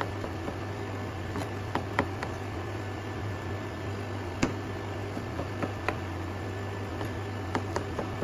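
Kitchen knife slicing button mushrooms on a wooden cutting board: irregular sharp knocks of the blade against the board, over a steady low hum.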